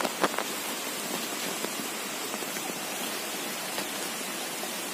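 Steady, even background hiss, like water noise, with a couple of faint clicks in the first half second.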